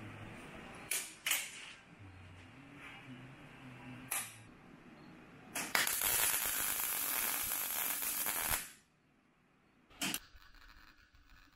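MIG welder laying a tack weld on steel plate: about three seconds of steady arc crackle starting about halfway in. A few sharp clicks come before it and one more after it.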